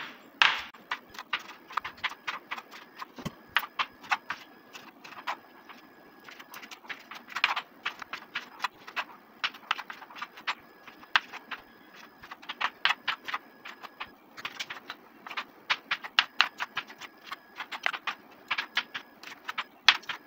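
Kitchen knife chopping tomatoes on a wooden cutting board: a run of sharp taps as the blade strikes the board, several a second, with short pauses between tomatoes.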